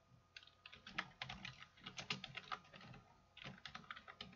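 Faint computer keyboard typing: quick runs of keystrokes, with a short pause about three seconds in before the typing resumes.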